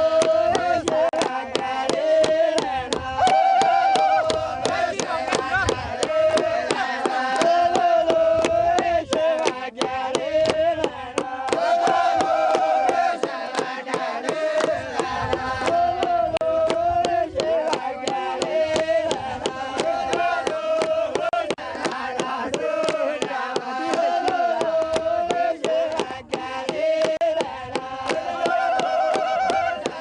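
A group of men singing a repeated folk dance melody together in chorus, with steady rhythmic hand-clapping.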